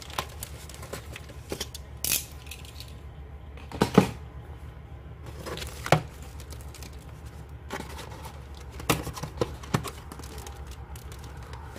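Black plastic shipping bag being torn and peeled off a cardboard box by hand, in irregular crackles and rips, the loudest about four seconds in. The cardboard flaps are pulled open near the end.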